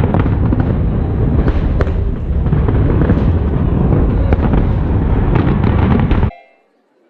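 Fireworks going off in a dense, loud barrage: continuous crackling and booming with many sharp bangs. It cuts off suddenly about six seconds in.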